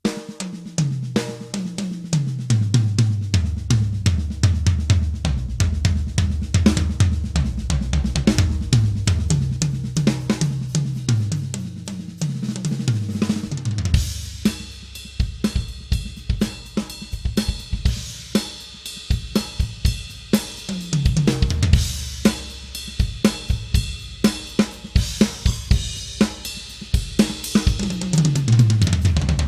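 Yamaha Maple Custom maple-shell drum kit played solo: kick, snare and hi-hat with repeated fills running down the toms from high to low. From about halfway the cymbals ring out more over the beat.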